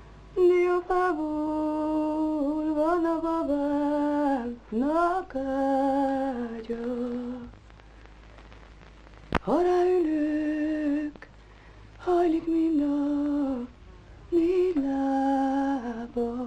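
A woman singing unaccompanied in slow phrases of long held notes, sliding between pitches, with a sharp upward swoop into a phrase about halfway through and short pauses between phrases.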